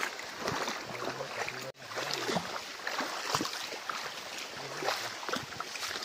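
Shallow stream water splashing and sloshing in irregular bursts, with faint voices underneath.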